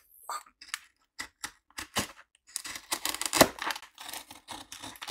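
Packing tape on a cardboard box being slit open with a small hand tool: a run of short scratches and clicks, turning into denser scraping and tearing about halfway through.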